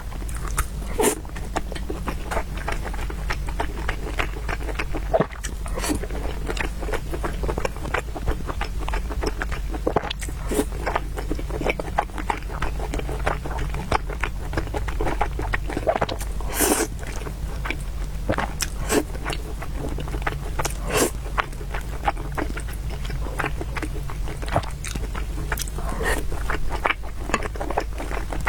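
Close-miked eating sounds: chewing and biting into noodles and meatballs, with many short wet clicks and smacks throughout, over a steady low hum.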